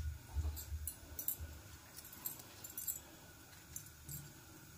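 Scattered light metallic clinks and ticks, with a few soft low thumps in the first second and a half.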